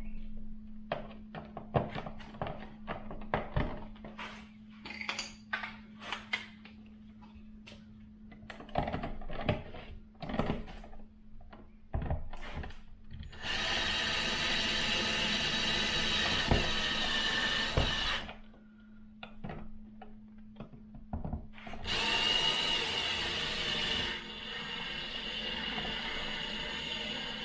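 Scattered knocks and rattles as the switch and its wiring are pushed into the wall box, then a power drill running twice, each time for about five seconds, driving screws home.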